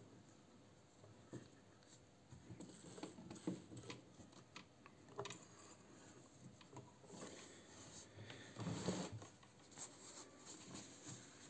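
Faint handling noises while a Singer 216 sewing machine is threaded: small clicks and the light rustle of thread being drawn through at the needle and presser foot. A louder rustle of cloth comes about nine seconds in.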